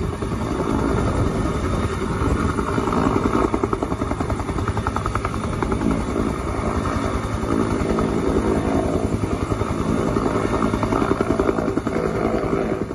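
Bell UH-1 Huey helicopter hovering low, its two-bladed main rotor beating in a steady, rapid throb.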